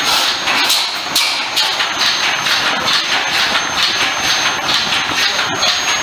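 Western 200 hp 17-ton horizontal stationary engine running steadily, with a loud, even mechanical beat of about two knocks a second.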